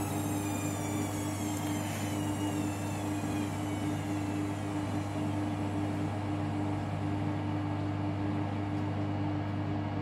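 Candy Grand'O Vita front-loading washing machine's drum spinning down at the end of its 400 rpm final spin: a steady motor hum, with a faint high whine falling in pitch over the first few seconds. The duvet load is a bit out of balance.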